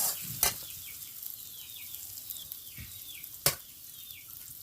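Spices frying in hot oil in a pan, a steady sizzle, with sharp clacks of utensil on pan near the start, about half a second in and again at about three and a half seconds. A bird chirps repeatedly in the background, short falling notes.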